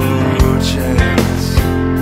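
Rock song playing, an instrumental stretch with drums keeping a steady beat.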